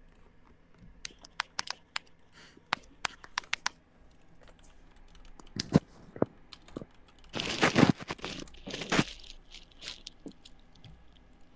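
A quick run of sharp clicks and taps, then two short rustling, crackling bursts of noise about two thirds of the way through.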